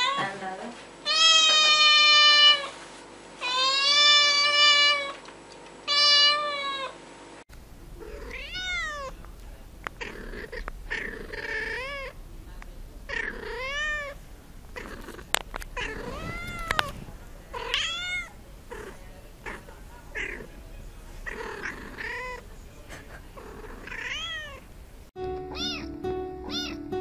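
Domestic cats meowing. First come about three long, loud meows. Then, about seven seconds in, a different cat meows in many short calls that rise and fall. Near the end, background music starts under a kitten's meows.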